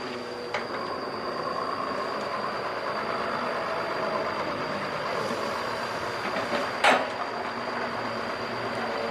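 Doosan 140 excavator's diesel engine running steadily while working, with a thin high whine throughout and a single sharp knock about seven seconds in.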